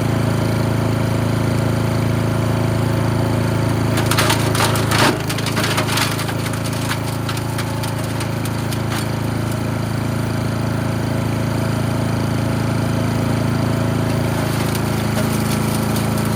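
Gas-engine chipper shredder running steadily; about four seconds in, a burst of cracking and snapping as sticks are shredded, and the engine note drops under the load, then runs on steadily.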